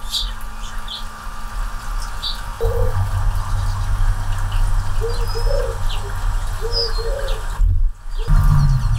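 Anna's hummingbird at a close-miked feeder: a few short, high chip notes over a steady low hum. A run of short, low notes comes in the middle, and a louder low hum follows a brief dropout near the end.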